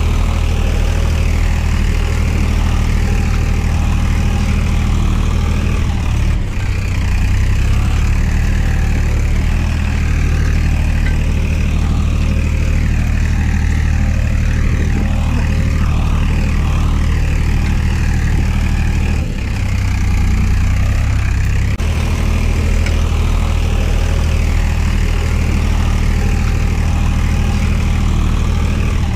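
Steady low tractor-engine drone, an added engine sound effect, since the toy tractors have no motors, running continuously and changing pitch abruptly a few times as the sound is cut or switched.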